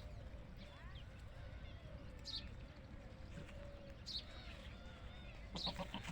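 Quiet farmyard with faint, scattered bird chirps, and a short, low, stuttering desi goat call near the end.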